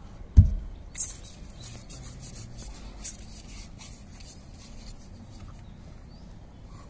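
CPVC plastic pipe fittings being handled on a concrete floor: a dull thump about half a second in, a sharper knock a second in, then plastic rubbing and scraping, with a small click near three seconds.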